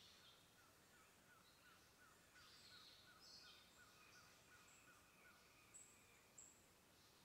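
Faint birdsong: a quick run of short repeated chirps, about four a second, under higher warbling phrases, with two sharp high notes near the end.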